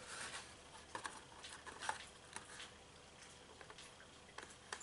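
Faint, scattered light ticks and rustles of a die-cut paper gift bag being handled and pressed together by hand on a cutting mat.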